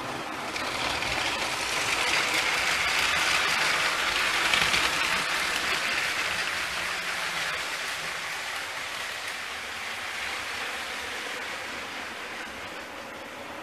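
Motorized Lego train running on plastic track: a steady whirring rattle of motor and wheels that grows louder over the first few seconds, then slowly fades as the train moves away.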